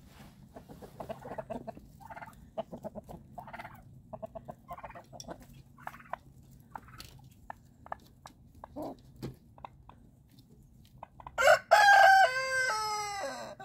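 A flock of chickens feeding, with short soft clucks and scattered light pecking clicks at a plate of scrambled eggs. About eleven seconds in, a rooster crows loudly for about two seconds, the pitch dropping in steps toward the end.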